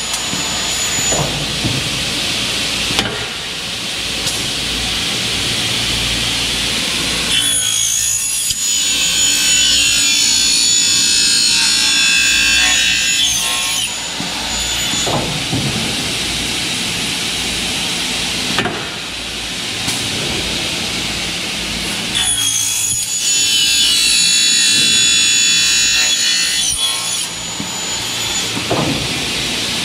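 Double-head aluminium cutting saw cutting 2.2 mm Xingfa aluminium profile. Twice, starting about 7 and 22 seconds in, a high-pitched cut lasts several seconds, over the steady running of the saw, with knocks between cuts.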